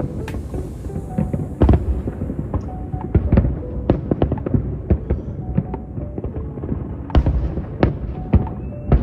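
Fireworks exploding in a dense, irregular barrage of bangs and thuds, several a second, with music underneath.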